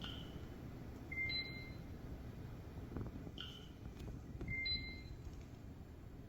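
Electronic beeps repeating in a cycle about every three and a half seconds: a short chirp, then about a second later a steadier two-tone beep, over a low steady rumble.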